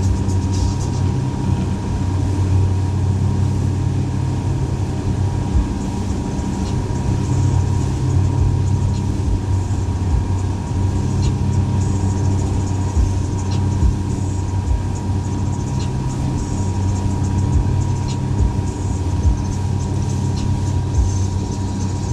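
Boat's outboard motor running steadily under way, a constant low engine drone with a thin steady whine above it.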